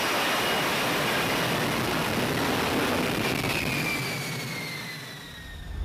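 Jet aircraft engine noise: a steady rushing sound with a faint whine that falls in pitch over the last couple of seconds as it fades.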